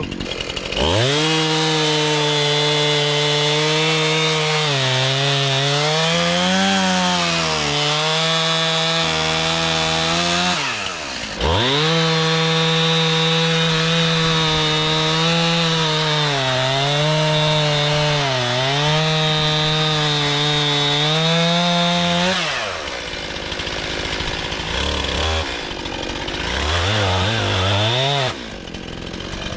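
STIHL chainsaw run at full throttle through a log, its pitch sagging and wavering as the chain bites into the wood. It is eased off briefly about ten seconds in, then cuts again, and near the end drops back to a low, uneven idle with a couple of short revs.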